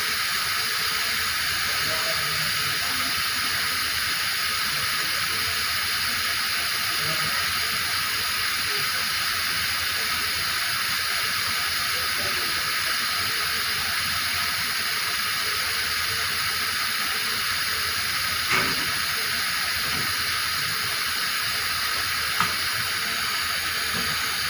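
Steady hiss of compressed air flowing through a dew point meter's sample line and venting, unchanging throughout, with two brief clicks in the last few seconds.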